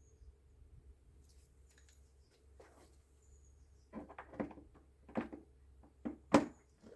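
Light clicks and knocks of a star-shaped (Torx) bit and long extension being fitted to a drill, a handful of them starting about four seconds in, over a faint low hum.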